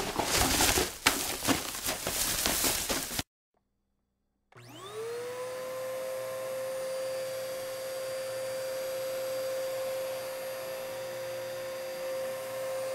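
About three seconds of crackling, rustling noise that cuts off abruptly. After a short silence, a vacuum cleaner motor spins up with a rising whine and then runs at a steady pitch.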